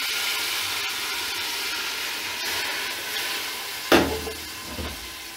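Beef and spices sizzling in hot oil in an aluminium pressure cooker, with a sudden loud splash about four seconds in as a glass of water is poured in; the sizzling is quieter after it.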